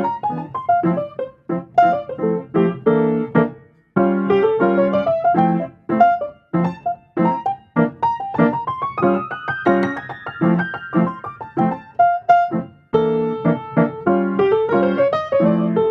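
Background music: a piano playing a lively melody with chords, notes struck in quick succession.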